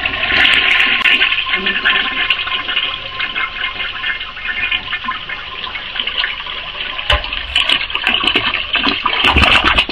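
Restored vintage Eljer Sylenta toilet flushing: a steady loud rush of water swirling around the bowl in a vortex, dropping away sharply at the end.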